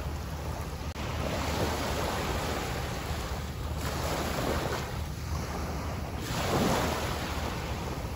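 Small waves lapping and washing up on a sandy beach, with wind rumbling on the microphone. The wash swells louder about four seconds in and again, most loudly, about six and a half seconds in.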